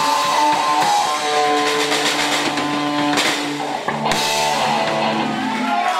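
Band music: guitar with drums, held notes changing every second or so.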